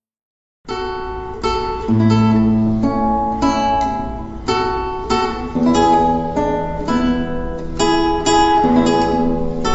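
Instrumental music on a plucked acoustic guitar, with melody notes over held bass notes. It starts suddenly about a second in, after a moment of silence.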